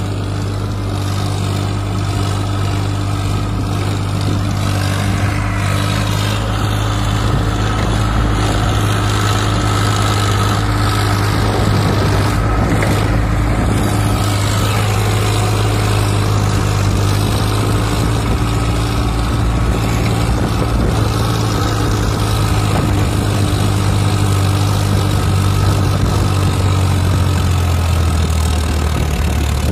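Farmtrac 60 EPi tractor's three-cylinder diesel engine running steadily under load, pulling a fully loaded trolley.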